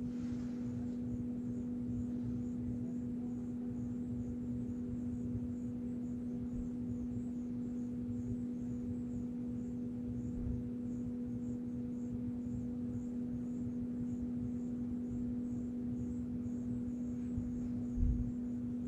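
A steady, unchanging low hum with a fainter second tone above it, the weird noise, under a faint high, rapidly repeating chirping. A short low thump comes near the end.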